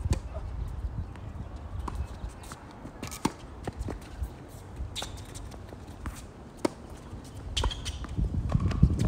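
Tennis balls struck by racquets and bouncing on a hard court during a doubles rally: a string of sharp pops at irregular intervals, roughly one every half-second to second, over a low rumble.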